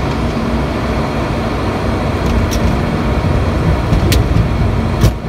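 Cabin and cockpit noise of an ATR 72-600 on its landing roll: a steady drone from the twin turboprops with a low rumble of the wheels on the runway. A few short clicks are heard, the sharpest near the end.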